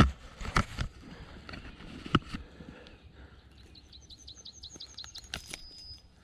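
A few sharp knocks and handling noises as a caught asp is unhooked with long pliers. About four seconds in, a bird sings a quick run of about a dozen short, high repeated notes, ending in a brief held note.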